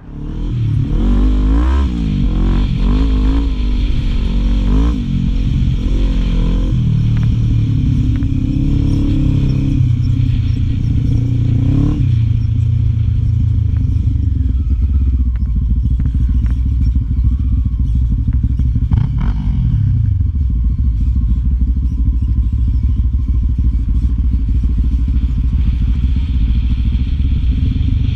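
Quad bike (ATV) engine heard from the rider's seat, revving up and down repeatedly over the first twelve seconds as it climbs and crests the sand tracks, then running at a steadier speed, with one drop in revs about two-thirds of the way through.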